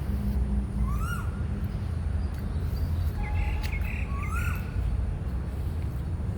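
Garden birdsong: one bird repeats a rising-then-falling call twice, about three seconds apart, and a short run of higher chirps comes between them. A steady low rumble runs underneath.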